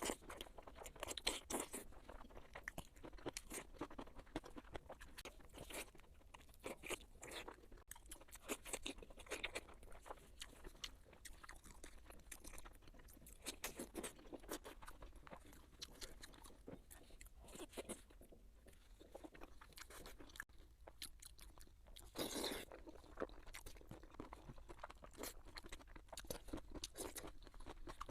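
People chewing and crunching food in an irregular stream of crisp crunches and mouth sounds, with a louder crunch about three quarters of the way through.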